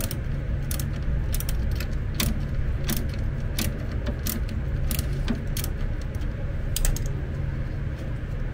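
Ratchet wrench clicking as a fastener on a power wheelchair's motor-gearbox unit is worked loose: irregular sharp clicks, about one or two a second, with a quick run of three near the end, over a steady low hum.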